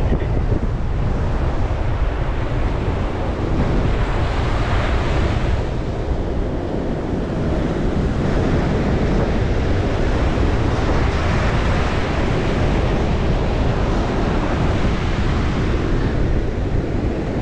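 Ocean surf breaking and washing onto the shore, the rush swelling a few seconds in and again around the middle, with wind buffeting the microphone as a steady low rumble.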